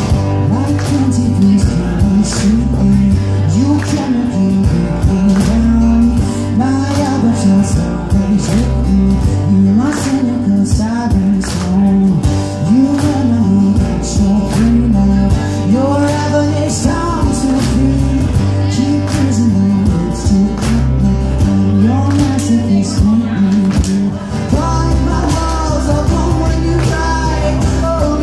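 Live band playing a rock song with acoustic guitar, bass and drums, a male voice singing over it.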